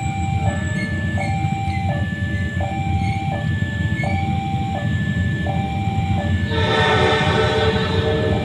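A railway warning alarm beeps in two alternating tones, high then low, about once every second and a bit, over the low rumble of an approaching train. About six and a half seconds in, the train's horn sounds, loud and held.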